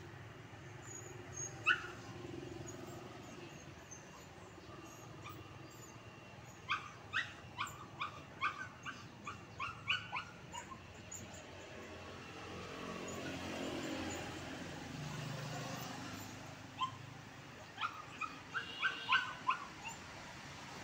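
Small fluffy spitz-type dog giving short, high-pitched yips: a single one near the start, a quick run of about a dozen in the middle, and another run near the end. Steady traffic rumble underneath.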